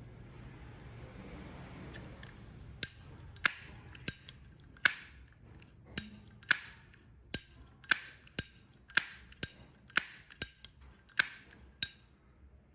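Brass-cased 1986 Zippo lighter's lid being flicked open and snapped shut again and again: about sixteen sharp metallic clicks with a brief ring, roughly two a second, starting a few seconds in. It is the lid clink collectors listen for, here called quite nice.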